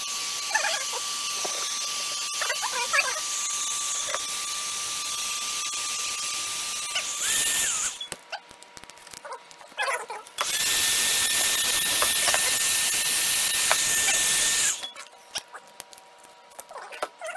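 Handheld hot-air blower running in two spells, a steady rushing hiss with a thin whine. The first spell lasts about eight seconds and its whine rises in pitch just before it cuts off. The second starts about two seconds later with a higher whine and stops about four seconds after that, leaving light handling clicks.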